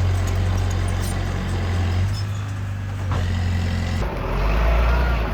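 Heavy diesel earthmoving machinery running steadily. About four seconds in the sound changes abruptly and a higher, steady whine joins the deep engine drone.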